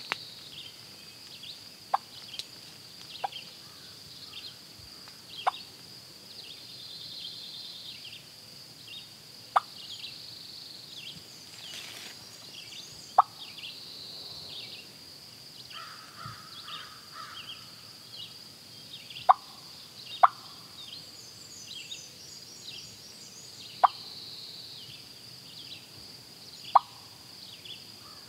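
Water drops plopping from wet leaves, about nine sharp single plops at irregular intervals of one to four seconds, over a steady background of high-pitched chirping.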